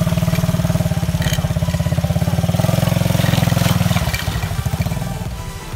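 Quad bike (ATV) engine running steadily as the machine drives through a shallow muddy stream; the engine sound drops off about four seconds in as it moves away.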